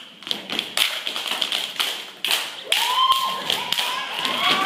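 Many feet stepping and stomping on a hard floor in a group dance: a run of sharp taps and thuds. Several voices call out from about halfway through.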